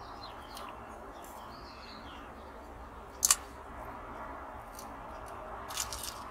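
Masking tape being peeled slowly off the painted diecast metal body of a toy car, with one sharp click about three seconds in and a few more clicks near the end. Faint birdsong in the background.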